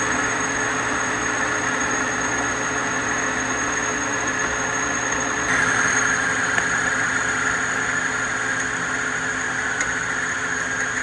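Metal lathe running while a boring bar cuts steel inside a bore, a steady machine hum with a high cutting whine. The sound shifts and gets a little louder about halfway through.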